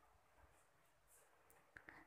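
Near silence: faint room tone, with two tiny clicks near the end.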